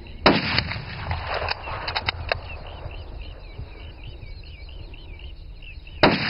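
Two follow-up shots from a .416 Rigby bolt-action rifle about six seconds apart, one just after the start and one near the end, with the bolt being worked about two seconds in. Birds chirp faintly between the shots.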